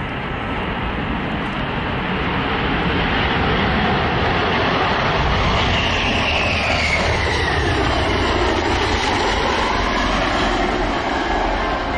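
Jet engines of a swing-wing bomber running on its landing roll: a steady loud rush with a whine that falls in pitch as the aircraft passes by, about halfway through.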